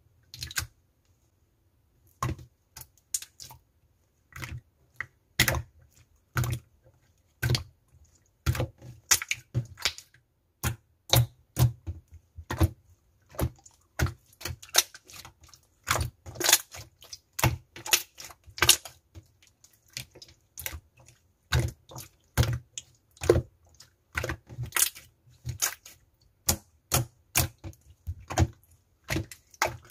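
Clear slime being pressed, poked and folded by hand, giving crisp, irregular clicks and pops, a couple a second, after a near-silent first two seconds.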